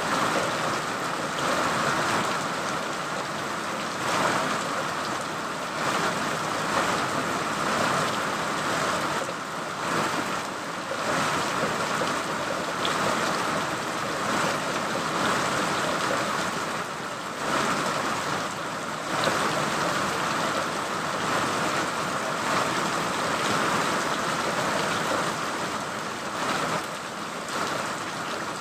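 Steady rain falling: an even hiss that swells and eases slightly every few seconds.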